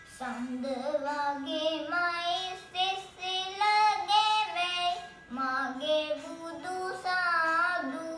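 A young boy singing a Sinhala Buddhist devotional song (bhakti gee) solo, in short melodic phrases, with a wavering held note near the end.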